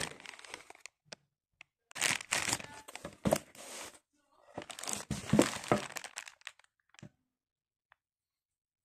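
Rustling and crinkling of a boxed L7C Pro phone gimbal being handled, the hand rubbing and sliding over the box, in two bursts with a few light clicks between them.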